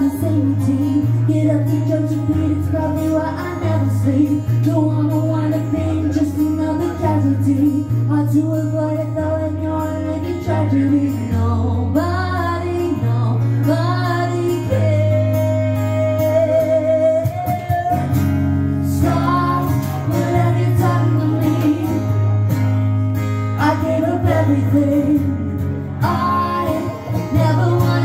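A woman singing a song live over guitar accompaniment, with low held notes that change about once a second underneath the melody.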